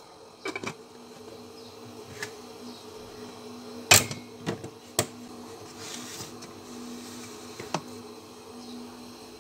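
Enamel pot being handled and set onto a refrigerator shelf: several knocks and clinks of the pot and lid against the shelf, the loudest about four seconds in. A steady buzzing hum runs underneath.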